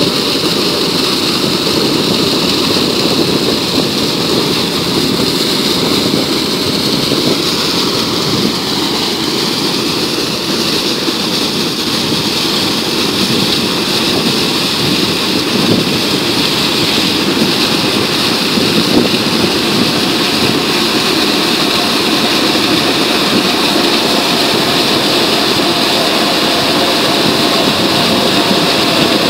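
Muddy water and compressed air jetting out of a steel discharge pipe as a water well is cleaned by air-lifting with a compressor: a steady, loud rushing gush that does not let up.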